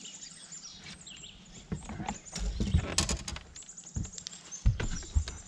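Birds chirping in the background, with scattered clicks and a few dull thumps of gear being handled in a fishing boat.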